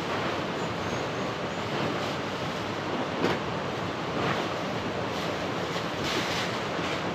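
Steady rushing noise of water, even and unbroken, with a few faint swells.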